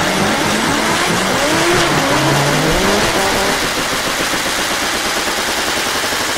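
Loud backing music, dense and steady, with tones sliding up and down like an engine being revved during the first three seconds or so.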